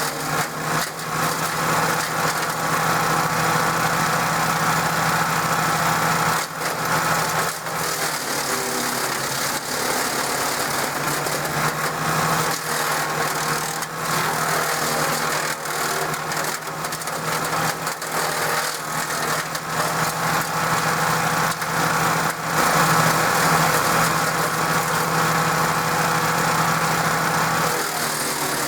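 DR 16.5 self-feeding wood chipper running steadily at speed on its Briggs & Stratton engine, with brief dips in level every few seconds.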